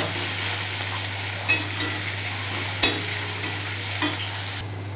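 Sliced onions sizzling in hot oil in a metal kadai as they are stirred with a metal spatula, with a few sharp clicks of the spatula against the pan.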